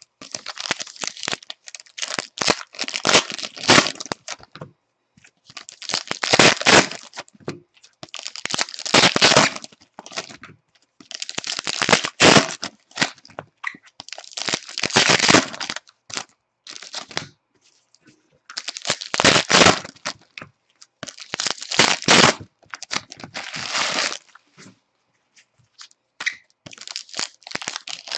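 Foil trading-card pack wrappers being torn open and crinkled by hand. The crackling comes in bursts a second or two long, every few seconds.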